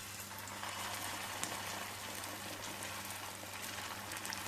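Aloo tikki (potato patties) shallow-frying in hot refined oil in a pan: a steady sizzle with scattered fine crackles, growing louder within the first second.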